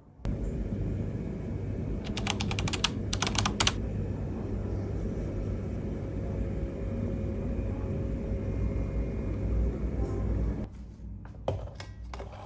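Steady low rumble with two quick runs of rapid, typing-like clicks about two and three seconds in. The rumble cuts off abruptly near the end, leaving a few light clicks.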